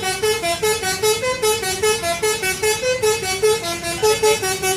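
Basuri telolet bus horn playing a quick melody of short, bright notes that step up and down several times a second.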